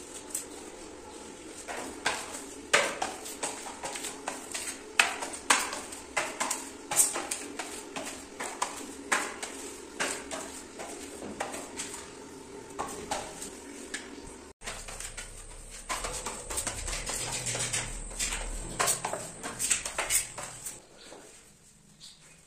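A hand-held grout scraper is drawn and tapped over ceramic floor tiles, working grout into the joints. It makes a run of irregular sharp scrapes and clicks, several a second, which die down near the end.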